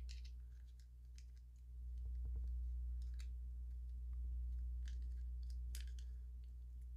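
Light, scattered clicks and taps of small hard-plastic miniature toy arcade-cabinet pieces being handled and fitted together, over a steady low hum.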